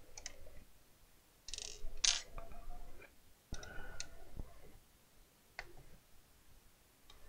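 Clicks, knocks and scrapes of hands and a small tool working on the plastic case of a soldering station while it is being opened up, loudest about one and a half to two seconds in.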